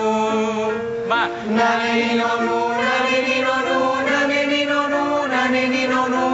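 A group of voices singing a vocal warm-up exercise on held syllables, moving up in steps from note to note, with a brief pitch slide about a second in.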